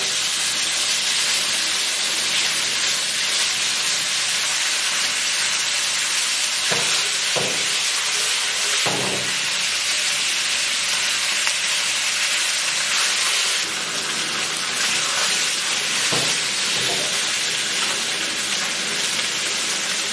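Fish head and bone pieces sizzling steadily in hot oil in a wok as they sear golden over high heat. A few brief knocks come in the middle as the pieces are turned over with chopsticks.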